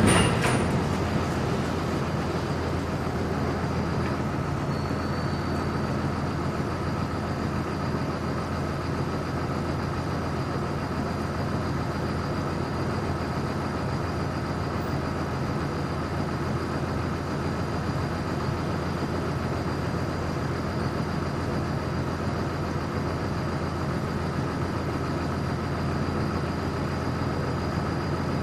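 Grain-hauling vehicle's engine running steadily, with an even low hum and a faint constant high whine. A louder noise dies away in the first second.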